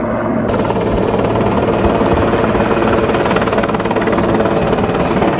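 Helicopter flying close by: loud rotor noise with the blades beating in a fast, even rhythm.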